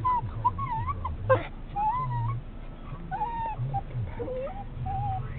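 Dog whining excitedly in a run of high, wavering calls that rise and fall in pitch, several in a row.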